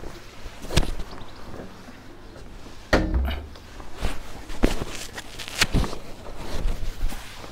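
Handling noises: about six separate knocks and thuds as cooking kit is picked up and set down beside an open pressure cooker–air fryer. The loudest is a heavy thud about three seconds in.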